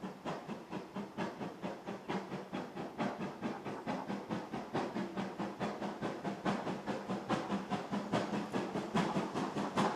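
Steam locomotive working under steam, its exhaust beating in an even rhythm of about three to four chuffs a second, growing steadily louder as it approaches.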